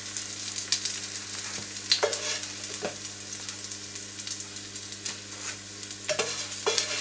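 Courgette fritters sizzling in olive oil in a frying pan, with a few clicks and scrapes of a spatula against the pan as they are lifted out: once about two seconds in, once near three seconds, and twice near the end.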